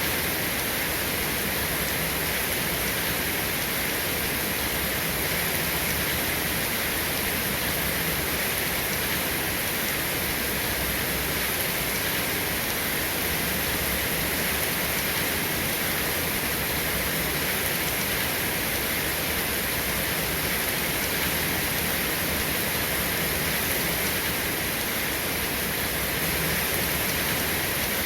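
Steady rain, an even hiss with no separate drops or thunder standing out and no change in level.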